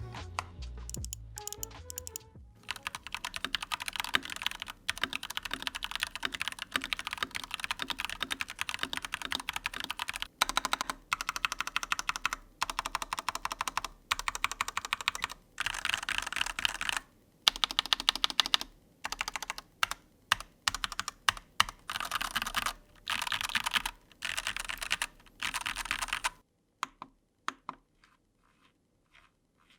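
RUF Serra68 mechanical keyboard with Gateron Pro Yellow linear switches being typed on fast, in runs of rapid key clacks broken by short pauses, stopping a few seconds before the end. There is a slight rattle, which the reviewer places at the Enter key's stabilizer.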